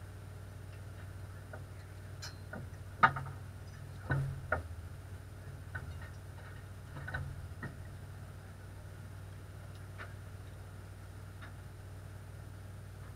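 A few scattered knocks and clicks inside a stopped race car's cockpit over a low steady hum. The sharpest knock comes about three seconds in, a short cluster follows about a second later, and lighter ticks come near the middle and end.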